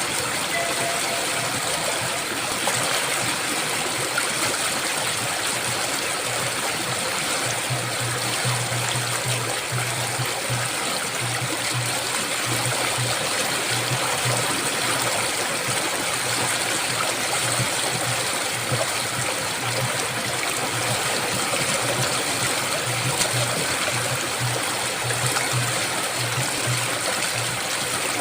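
Waterfall: a steady, unbroken rush of falling water, with a low hum underneath that comes and goes.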